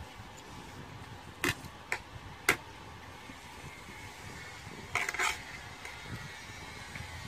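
Spoons and forks clicking against plastic plates while eating: three sharp clicks in the first few seconds, then a quick cluster of clicks about five seconds in, over a low steady background noise.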